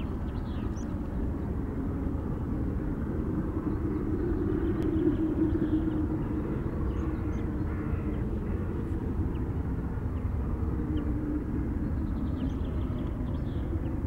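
Low, steady rumble of a distant train, with a few faint high chirps over it.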